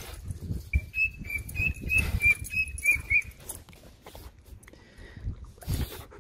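Dogs nosing and brushing against a camera held low to the ground, giving rumbling, thumping handling noise. Over it, in the first half, comes a quick run of short high chirps, about three a second.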